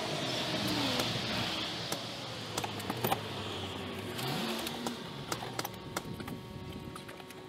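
A car passing on a nearby street, its engine and tyre noise swelling and fading over the first few seconds. Scattered light clicks and knocks follow.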